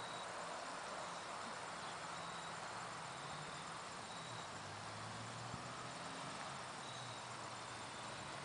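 Faint rural outdoor ambience: a steady hiss with short, high insect chirps every couple of seconds.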